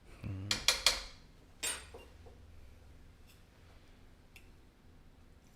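A metal cooking utensil clanking against a pan a few times, then a short scrape in the pan, followed by a few faint ticks.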